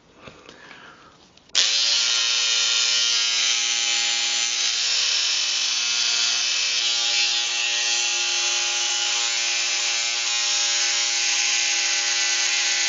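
Philips QC5005 electric hair clipper switched on about a second and a half in, then running steadily with a loud motor hum. Its twelve-year-old motor runs noisily, which the owner puts down to age.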